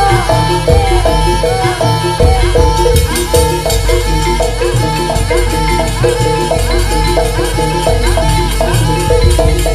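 Javanese gamelan music accompanying a barongan dance: metallophones play a fast repeating melody over drums and rattling percussion.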